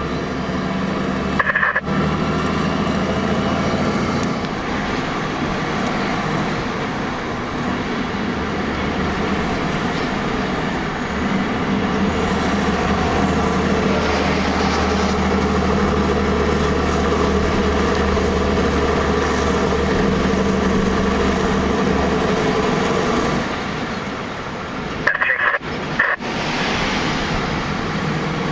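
Heavy-haulage truck's diesel engine pulling steadily under load, a constant drone that eases off a little over twenty seconds in. Short crackles of two-way radio squelch come near the start and again near the end.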